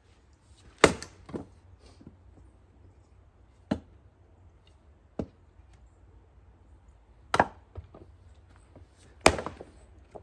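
Steel axe striking and splitting firewood: three sharp, loud chops, one about a second in and two near the end, with lighter wooden knocks in between.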